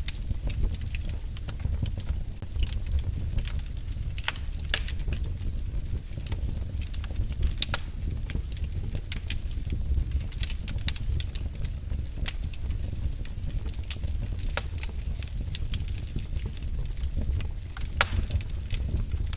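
Wood fire burning in a fireplace: a steady low rumble of flames with irregular sharp crackles and pops from the logs, one of the louder pops near the end.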